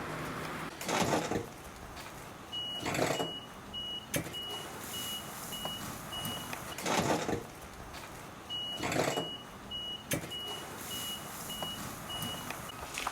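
A vehicle's reversing beeper sounds in two runs of about seven evenly spaced high beeps. Short swishing or scraping noises come every couple of seconds throughout.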